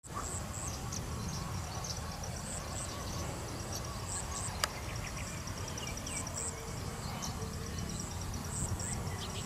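Outdoor hillside ambience: an insect trilling in a rapid run of high pulses, scattered short high chirps, and a steady low rumble of wind on the microphone. A single sharp click about halfway through.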